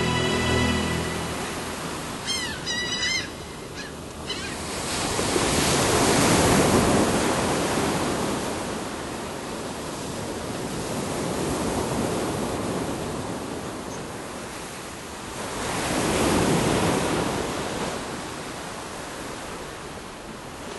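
Sea surf washing ashore, swelling with a breaking wave about six seconds in and again near sixteen seconds. A seagull calls briefly about two seconds in.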